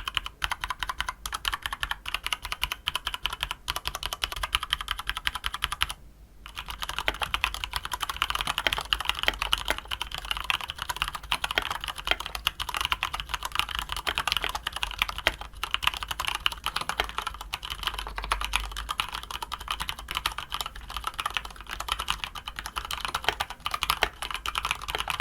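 Fast, continuous typing on a mechanical keyboard fitted with AKKO Carbon Retro ASA-profile double-shot PBT keycaps, the taller caps giving some resonance from their hollow inner space. The typing pauses briefly about six seconds in.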